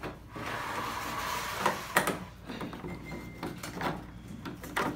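Hard plastic parts of a toddler slide scraping and knocking together as a yellow handle rail is pushed into a slot in the slide's panel, with a few sharp clicks about two seconds in.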